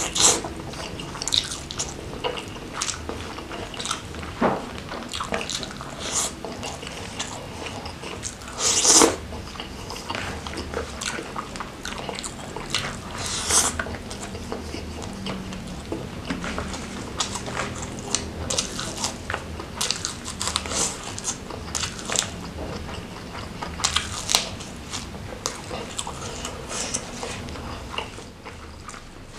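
Close-miked chewing of fried gourami with rice and sambal, eaten by hand: a run of crunching bites and chewing clicks, loudest about nine seconds in.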